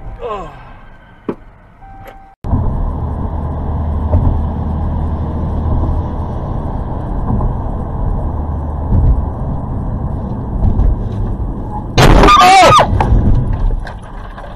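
Steady road and engine noise inside a moving car driving on a highway bridge. About twelve seconds in there is a sudden, very loud burst under a second long, with a wavering shrill tone in it.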